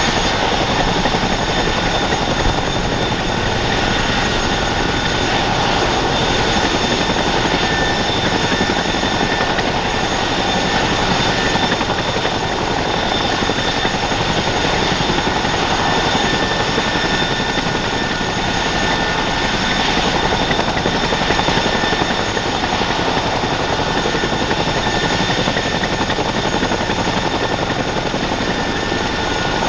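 Boeing CH-47F Chinook helicopter running steadily, its twin Honeywell T55-GA-714A turboshafts giving a few steady high whining tones over a dense, unchanging mass of engine and rotor noise.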